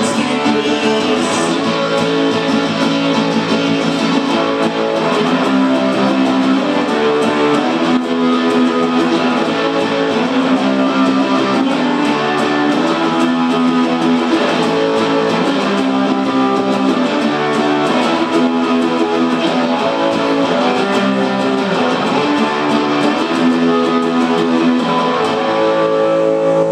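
Acoustic guitar strummed hard in a steady rhythm, cycling through a repeating chord pattern with no vocals.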